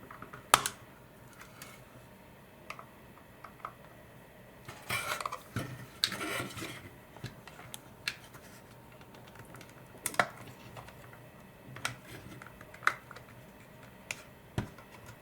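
A small flat-blade screwdriver prying at the plastic cover of a Dyson V10 cordless vacuum: scattered sharp plastic clicks, with a stretch of scraping and rattling about five to seven seconds in.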